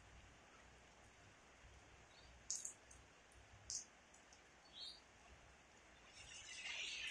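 Near silence with a faint steady hiss, broken by three short high bird chirps. Near the end a steady high-pitched hiss swells and grows louder.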